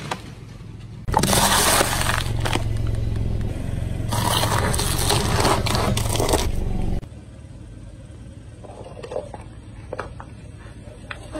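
Car tyre rolling slowly over an ear of corn and crushing it: loud crunching and crackling from about a second in for about six seconds, over a steady low hum. After that it goes quieter, with a few small cracks near the end as the tyre meets paper cups.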